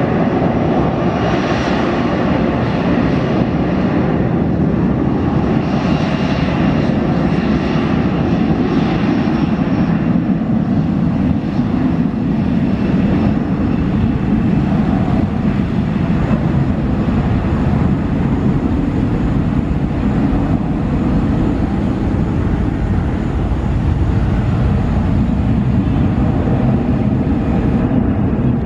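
Boeing 737 airliner's twin jet engines at takeoff power, a loud, steady rumble with a wavering hiss above it during the takeoff roll.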